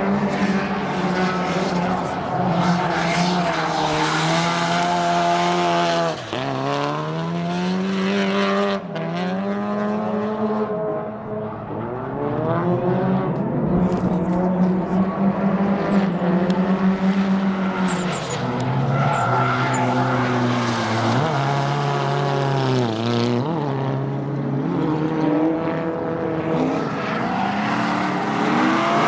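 Drift car's engine revving high and falling back again and again as it slides, with the squeal and hiss of spinning, sliding tires. The engine pitch climbs over a few seconds, then drops sharply, several times over.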